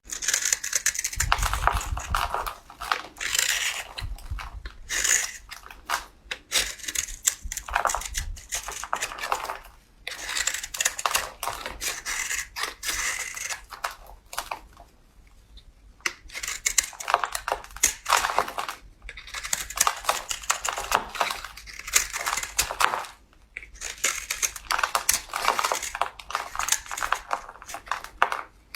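A knife cutting through a bar of soap, a dense crisp crackle of tiny clicks as the blade goes through, in stretches of a few seconds with brief pauses between cuts.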